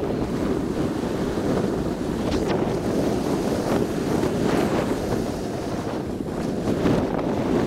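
Wind rushing over the camera's microphone while the mountain bike rolls along an asphalt road, a steady low rushing with a few faint rattles.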